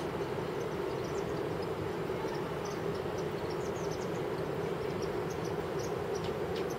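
Steady distant roar of Iguazu Falls, with insects chirping over it in many short, high calls.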